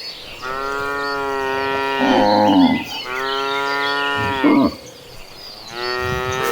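Cattle mooing: about four long, drawn-out moos one after another. A louder, lower moo overlaps the first one about two seconds in, and the last one begins near the end.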